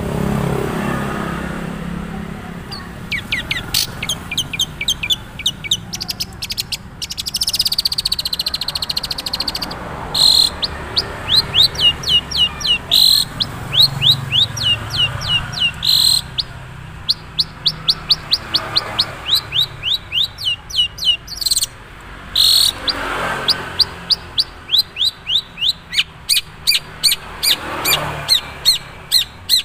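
Long-tailed shrike (cendet, Madura type) singing its natural song with little learned mimicry: runs of short sweeping whistled notes at about three a second, broken now and then by loud harsh scratchy notes, starting about three seconds in.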